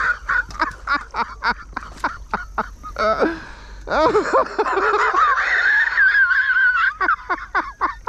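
A man laughing hard: a fast run of short, pitched laughs, then a long, high, wavering laugh from about four to seven seconds in.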